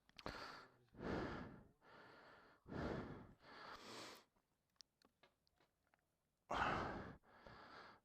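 A person breathing out heavily in short puffs, about seven in all, with a pause in the middle broken by two faint clicks.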